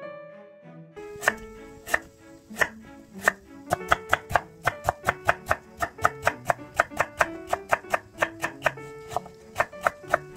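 Kitchen knife chopping soaked seaweed on a wooden cutting board: a few spaced strokes, then a quick steady run of about three chops a second.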